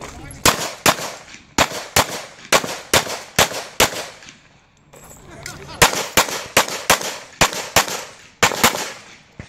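Semi-automatic pistol fired rapidly in pairs of shots about a third of a second apart: four pairs, a pause of about a second and a half, then four more pairs.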